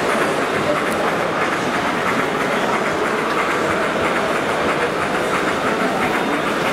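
Model freight train of refrigerator cars rolling past, its wheels clicking steadily over the rail joints.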